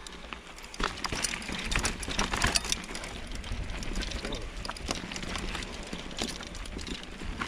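Mountain bike riding down a rough dirt trail: tyres rolling over dirt and the bike rattling, with many short knocks and clicks as it goes over bumps and ruts, over a steady low rumble of wind on the microphone.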